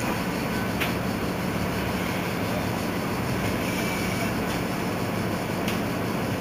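Mercedes-Benz Citaro C2 city bus idling at a stop: a steady low engine hum, with two short clicks, one about a second in and one near the end.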